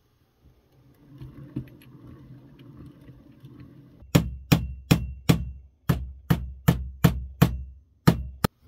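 Hammer tapping small nails into a wooden block: about eleven sharp strikes, two to three a second, starting about four seconds in, the first few with a brief metallic ring. Before them, faint knocks from handling.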